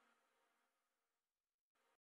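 Near silence: a gap between stretches of background music.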